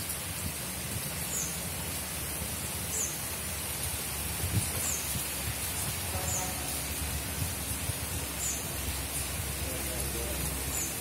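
Steady outdoor watery hiss, with a short high chirp repeating about every second and a half.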